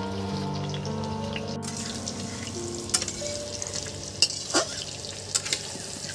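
Potato chunks sizzling as they fry in hot mustard oil in a metal kadai, with a few sharp clinks from a metal spatula stirring against the pan in the second half. Background music with long held notes plays underneath.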